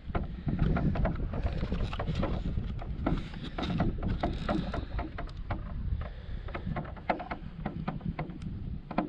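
Water splashing and lapping at a kayak's hull as it is paddled, with many small irregular splashes and drips over a steady low rumble of wind on the microphone.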